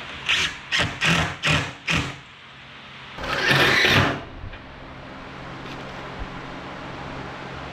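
Cordless DeWalt driver running in short bursts, five quick pulses and then one longer run of about a second, driving screws through ribbed metal roofing panels.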